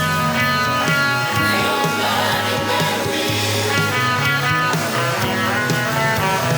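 Rock music with electric guitar playing at a steady level.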